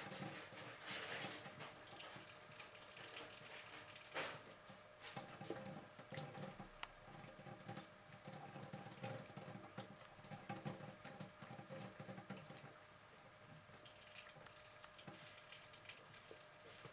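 Faint trickle of a thin stream from a kitchen faucet splashing into the sink, with small irregular splashes and ticks as a cat laps at the falling water.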